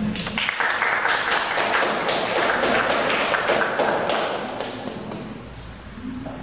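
Classroom audience clapping after a talk, many hands at once, dying away near the end.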